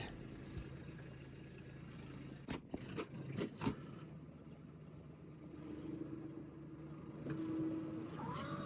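Kubota LX2610 compact tractor's diesel engine running faintly and steadily, with a few sharp clicks and knocks a third of the way in. Its note rises a little near the end.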